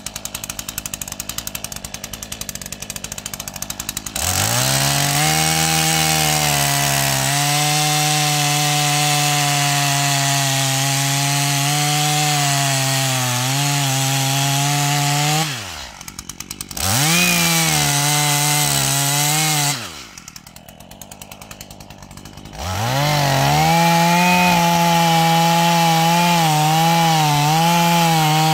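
Stihl MS 212 two-stroke chainsaw idling, then revved to full throttle about four seconds in and held there, its pitch wavering slightly. It drops back to idle twice, briefly and then for a couple of seconds, and revs up again each time.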